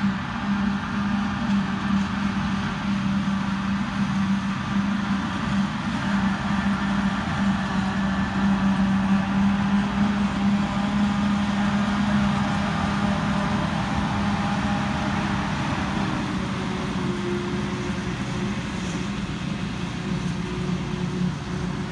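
Claas Jaguar forage harvester and a Claas tractor running together at work, a steady machinery drone with a deep hum as the harvester chops grass and blows it into the trailer. It grows louder through the middle as the machines pass closest, then eases off.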